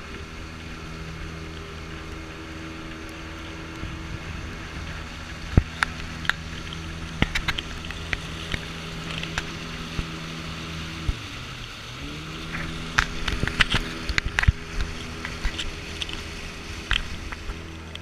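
Outboard motor of a long motorized canoe running at cruising speed, a steady drone whose pitch dips briefly about two-thirds of the way through and then picks up again, over the rush of water and wind. Irregular sharp knocks and taps come in from about a third of the way through and grow busiest near the end.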